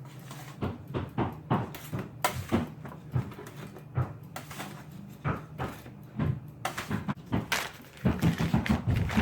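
Roofers nailing new shingles onto a house roof: irregular sharp knocks, several a second, with a quick run of strikes near the end.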